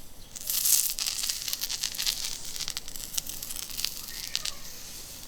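Oil sizzling and crackling on a hot thick iron griddle plate being seasoned over a charcoal grill: a dense hiss with scattered sharp pops, loudest about a second in.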